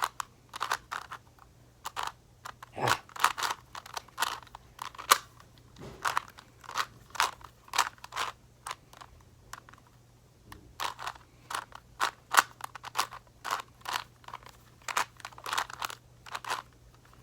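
Rubik's Cube being turned by hand during a timed solve: the plastic layers click and scrape in quick irregular runs, with a longer pause a little past halfway.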